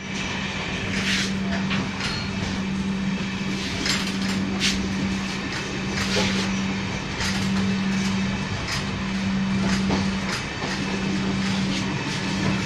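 Running noise inside a Humsafar Express train coach: a steady rumble with a constant low hum and scattered clicks and rattles.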